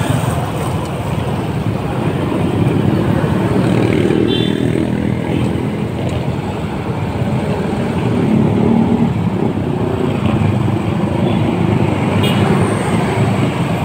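Steady engine and road noise heard from a scooter riding slowly in congested traffic, with the small engines of surrounding motorcycles and cars running close by. Two brief high tones sound, one about four seconds in and one near the end.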